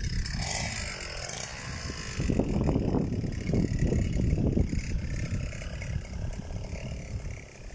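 Petrol string trimmer running, its nylon line cutting wet grass along a fence.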